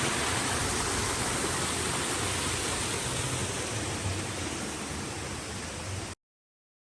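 A steady rushing noise with a low, fluctuating rumble under it, cutting off abruptly about six seconds in.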